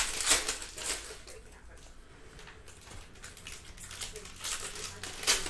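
Plastic trading-card pack wrappers being torn open and crinkled by hand. One burst of crackling comes right at the start, quieter handling follows, and a second burst comes about four and a half seconds in.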